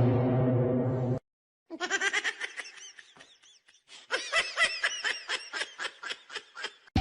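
A steady held tone for about a second, then, after a short break, high-pitched laughter in quick repeated bursts that goes on to the end.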